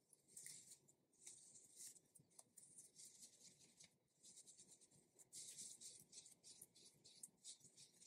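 Hands squeezing and stretching a soft silicone gorilla squeeze toy: faint, irregular rubbing and squishing of skin on rubber, with small clicks.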